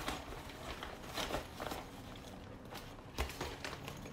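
Rustling and soft scuffs of a patterned cloth hanging travel toiletry bag being folded up in the hands, a handful of separate brushes with a soft thump about three seconds in.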